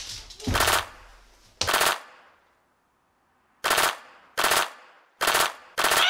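Automatic gunfire in short bursts, each a rapid rattle of shots: two bursts, a silent gap of about a second, then four more bursts in quick succession.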